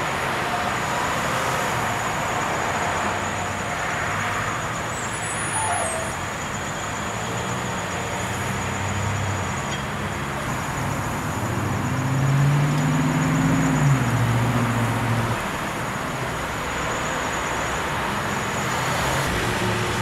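Road traffic and engines running, a steady vehicle noise, with one vehicle's engine getting louder and rising then falling in pitch a little past halfway, as it passes.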